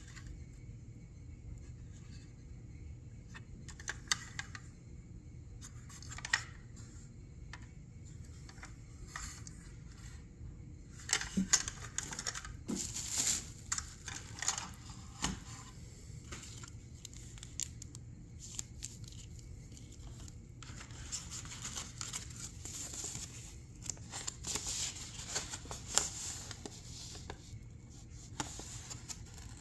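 Hands handling packaging: paper and plastic rustling and crinkling, with scattered light clicks and taps of the model and box, coming in two busier stretches, one a little before the middle and one in the last third.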